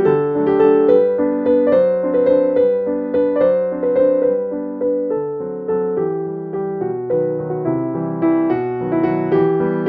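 Background piano music: a steady run of struck notes, each fading before the next.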